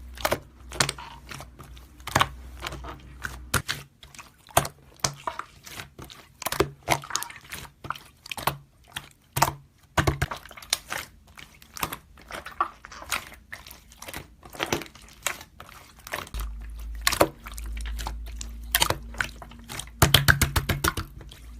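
Slime being squeezed and pressed by hand: an irregular string of wet clicks, squelches and small popping crackles, a few a second, with a quick run of them near the end.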